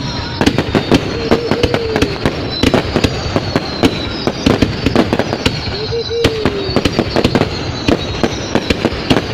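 New Year fireworks going off in a dense, continuous barrage of bangs and crackles, with high whistling tones that slowly fall in pitch.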